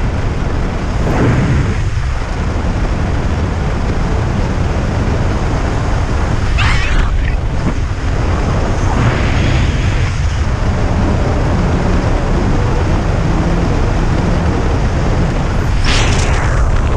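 Steady loud wind rushing over a skydiver's helmet-camera microphone under an open parachute canopy, with a deep rumble. A few brief louder gusts come about a second in, near the middle, and near the end.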